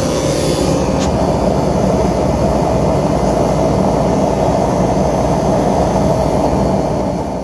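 Air-conditioning unit running steadily, its compressor and condenser fan making a constant mechanical hum and rush of air.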